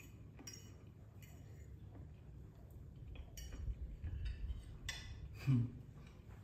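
Metal fork clinking and scraping against a ceramic plate as a piece of pie is cut and picked up: several light, separate clinks. Near the end, a short hummed 'mm' from someone tasting.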